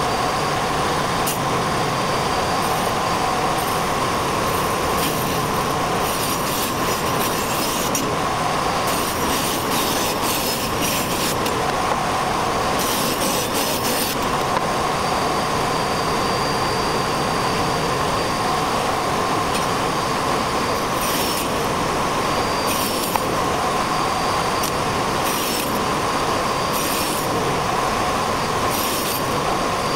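Angle grinder fitted with a wood-cutting blade and mounted under a table as an improvised circular saw, running steadily with a whine. Several times the sound turns harsher as boards are fed through the blade.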